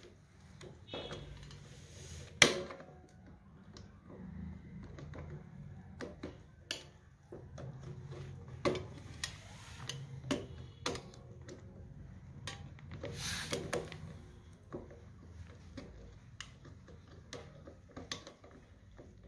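Irregular clicks and clacks of a magnetic contactor's hard plastic and metal parts being handled and taken apart, with one sharp loud click about two and a half seconds in, over a faint low hum.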